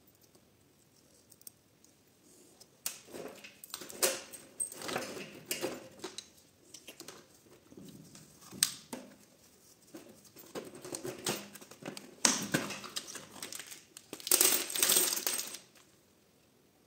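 Metal clinking and rattling, starting about three seconds in, as parts of a dismantled Audi multitronic CVT gearbox and loose links of its broken steel drive chain are handled and knock together. The loudest clattering comes near the end.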